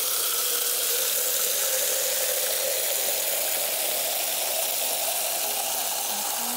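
Water jetting from a hose spray nozzle into a galvanized metal pail: a steady splashing hiss with a faint tone that slowly rises as the pail fills. It cuts off at the very end.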